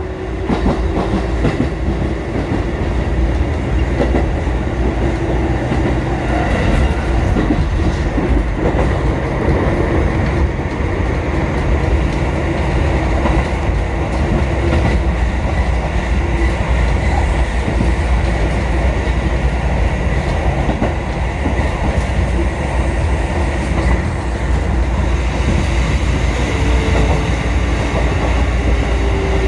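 Kotoden 1080- and 1100-series electric train running on the line, heard from inside at the front: a steady rumble of wheels on rail with clickety-clack over the rail joints. A motor hum runs under it and shifts in pitch near the start and again near the end.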